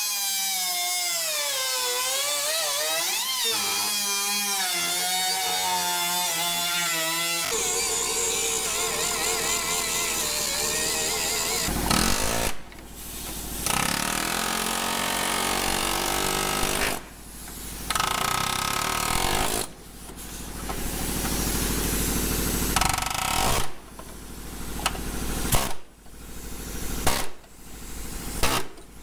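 Air-powered cutoff wheel cutting through the sheet-metal cab of a Nissan D21 Hardbody, its whine wavering up and down in pitch as it loads into the metal. After several seconds the sound turns harsher and noisier, and in the second half the tool stops and restarts several times in spells of a few seconds.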